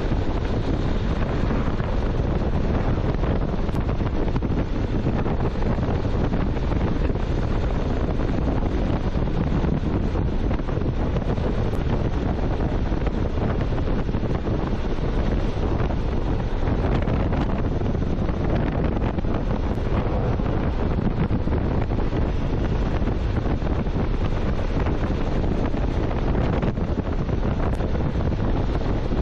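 Wind rushing over the microphone in a steady, loud roar of noise, as on a motorcycle moving at road speed.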